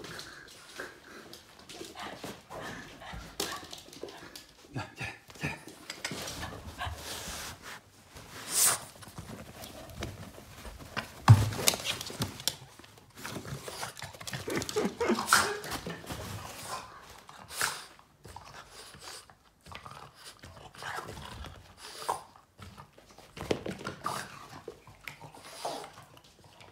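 Boston terrier panting and making short excited vocal sounds while it plays, amid scattered knocks from toys and paws. The loudest is a single sharp sound about eleven seconds in.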